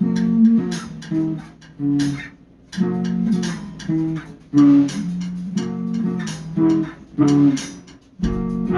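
Background music: a guitar-led track with plucked notes and a bass line in a steady rhythm.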